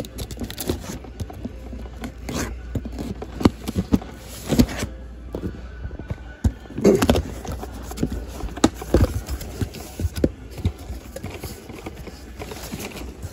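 A corrugated cardboard shipping case being handled and torn open by hand: irregular scrapes, rustles and sharp knocks of the cardboard.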